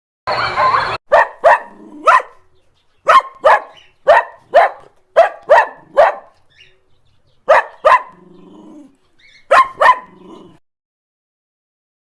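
A dog barking: about fourteen short, sharp barks in quick groups of two or three, after a brief rough noisy sound at the start.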